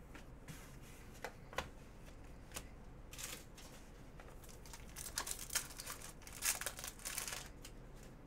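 Trading cards handled and slid through the hands: a few light ticks, then a run of short papery swishes as cards slide over one another.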